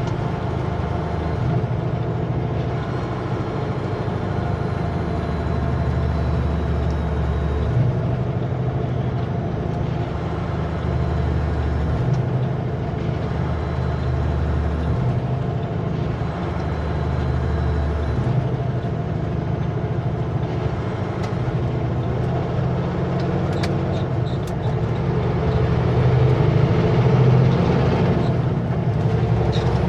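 Kenworth W900L semi truck's diesel engine running under way, a steady low drone whose deepest note drops out and returns several times in the first twenty seconds.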